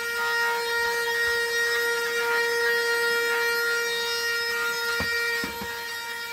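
Ionvac cordless handheld car vacuum running as its nozzle is worked over carpet: a steady whine from the motor over the hiss of the airflow. A few light knocks come about five seconds in.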